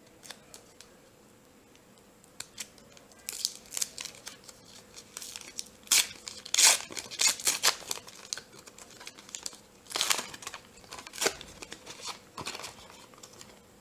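Foil wrapper of a 1990-91 Upper Deck hockey card pack being torn open and crinkled by hand. Irregular sharp rips and rustles start about three seconds in and are loudest in the middle.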